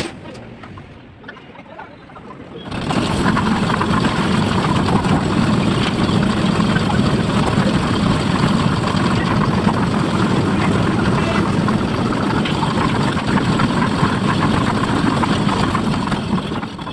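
A machine engine starts up loudly about three seconds in, runs steadily, and stops just before the end.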